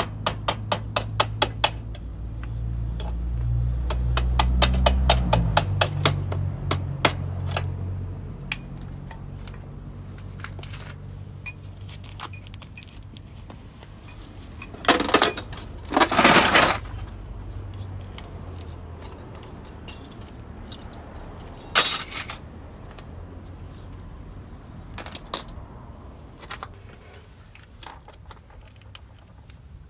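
Metal tools and parts clinking and clattering. A run of rapid, evenly spaced clicks opens, over a low hum in the first few seconds. Louder jangling clatters follow about halfway through and again a few seconds later.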